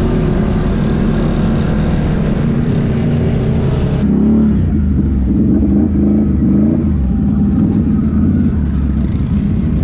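Off-road vehicle engine running under way and revving in the mud. The sound changes abruptly about four seconds in, with a wavering engine note from then on.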